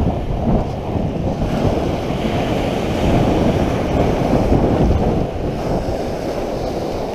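Surf breaking and washing up a shingle beach, with heavy wind rumble buffeting the microphone.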